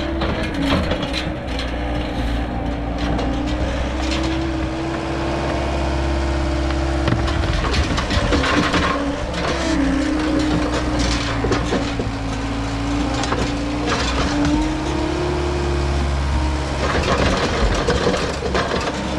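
Diesel engine of an excavating machine running steadily with a wavering whine, with bouts of scraping and crunching as earth and gravel are dug, about eight seconds in and again near the end.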